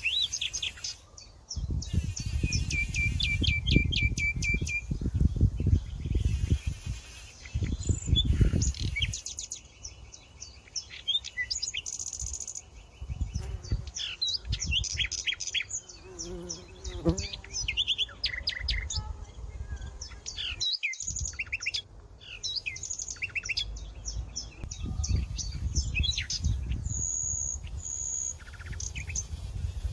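Several wild birds chirping and singing, with short calls and trills overlapping throughout. Bursts of low rumble at the start, around the middle and near the end are the loudest parts.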